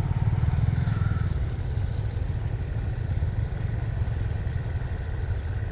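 Diesel locomotive GEK 4005 running at low speed as it tows a broken-down railcar set, heard as a steady low engine throb with a fast, even pulse.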